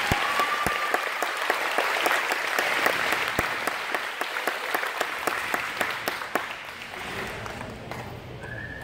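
Audience applauding, dense clapping that thins out and dies away about seven seconds in.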